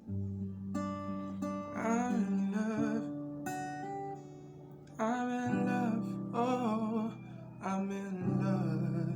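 Acoustic guitar playing sustained chords, with a man's voice singing wordless, wavering vocal runs in three phrases over it.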